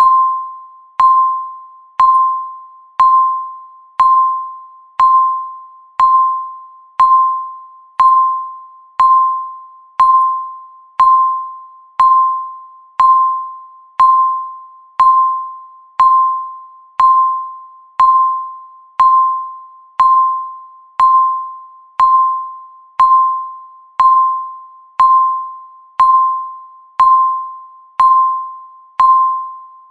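Countdown timer beeping once every second, marking each second of the count: a single high electronic tone that starts sharply and fades away before the next.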